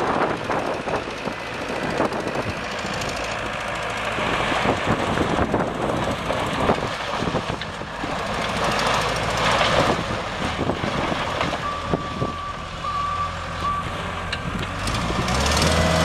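Case 90XT skid steer's four-cylinder turbo diesel engine running as the machine drives and turns, with the rough, uneven noise of travel. A brief high beeping tone sounds about twelve seconds in, and the engine grows louder and steadier near the end.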